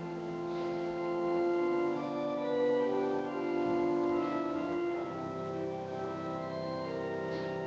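Church organ playing slow, sustained chords, the notes shifting every second or so.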